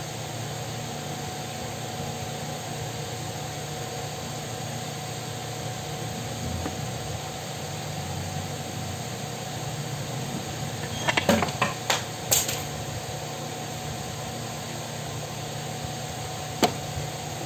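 Steady hum of an electric pedestal fan running. A quick cluster of sharp clicks about eleven seconds in, and a single click near the end.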